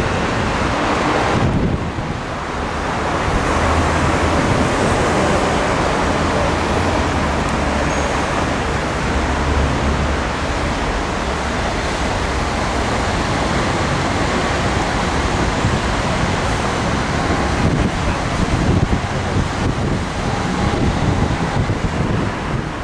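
Wind buffeting the microphone on the open upper deck of a moving bus, over steady city traffic noise. The rush eases briefly about two seconds in.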